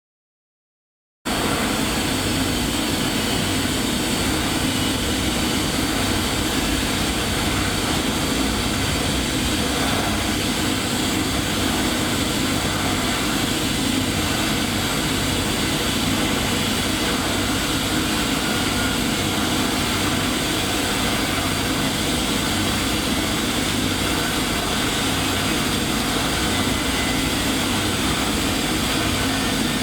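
DC TIG welding arc from a Kingree TIG315 on 10 mm stainless steel at about 160 amps: a loud, steady noise that starts suddenly about a second in and holds even.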